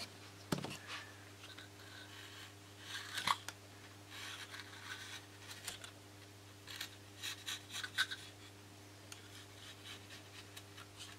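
Faint, irregular scratching and snipping of a hobby knife trimming balsa shear webs down flush with the wing spar.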